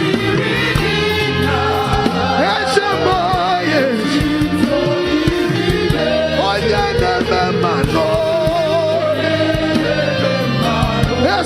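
A large congregation singing a gospel praise song in Igbo together, many voices in unison over a steady instrumental backing.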